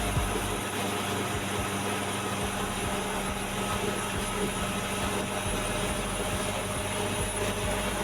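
A vehicle driving at a steady pace: even engine and road noise with a steady low hum.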